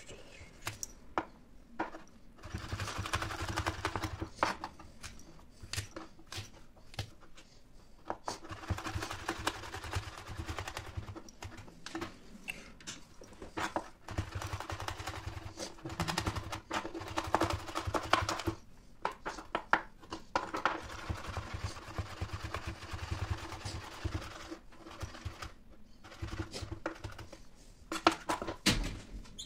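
Kitchen knife rapidly chopping garlic on a white cutting board: runs of fast taps of the blade on the board, broken by short pauses, over a steady low hum.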